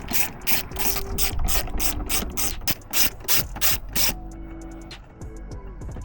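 Hand ratchet wrench clicking in quick, even strokes, about four clicks a second, as a fastener is turned; the clicking stops about four seconds in, leaving a few faint ticks.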